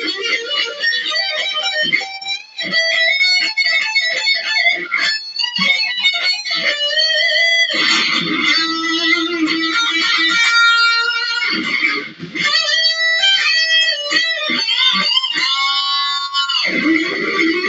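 Electric guitar shredding: fast lead runs of many short notes, with a wavering held note near the end.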